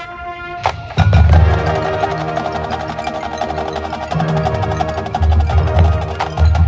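Marching band music: a held brass chord, then about a second in the full band and drum line come in loud, with rapid percussion strokes over sustained brass chords.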